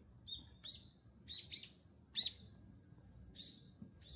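A bird calling with short chirps, about seven spread over a few seconds, the loudest a little after two seconds in.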